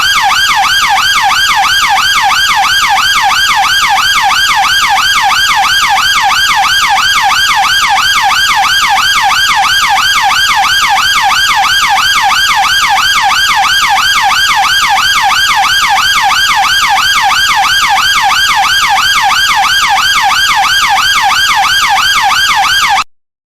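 British police car siren on its yelp setting: a fast, even rise and fall in pitch, several sweeps a second, that cuts off suddenly near the end.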